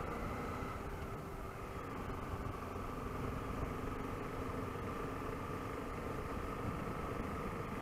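Honda XRE 300 motorcycle's single-cylinder engine running steadily while riding, with an even low rush of wind and road noise.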